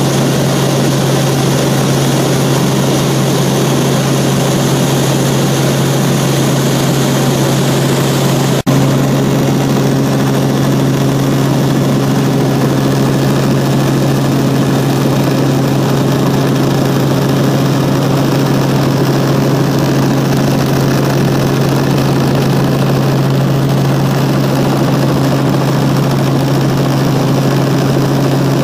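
Helicopter engine and rotor running steadily in flight, a loud even drone heard from inside the cabin. A single sharp click about nine seconds in.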